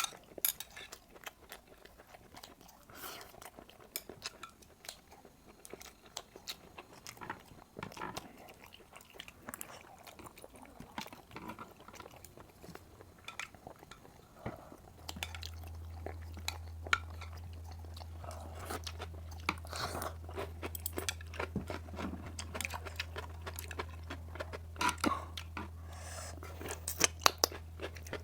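A person chewing food close to the microphone: wet mouth sounds with many short sharp clicks. About halfway through, a steady low hum starts and keeps going underneath.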